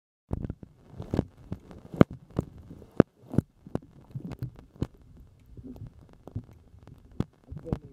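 Muffled underwater audio from a camera held below the surface: a low, throbbing rumble broken by irregular sharp knocks and clicks, the loudest about two and three seconds in.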